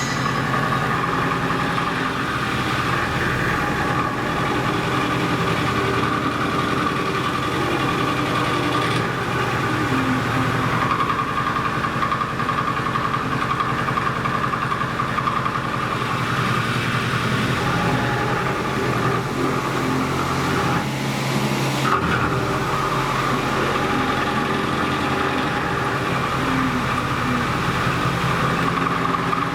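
Milling machine running steadily as its cutter machines a stamping die: a continuous mechanical drone with a sustained mid-pitched whine.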